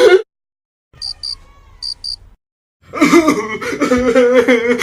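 A brief dead silence broken by a faint cricket-chirp sound effect, two pairs of short high chirps. Then, about three seconds in, a person breaks into loud, drawn-out voiced coughing.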